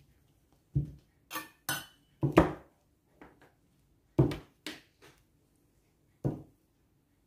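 Stainless steel rolling pin knocking and rolling over a plastic-covered table while dough is rolled thinner: an irregular series of about nine clunks and short scrapes.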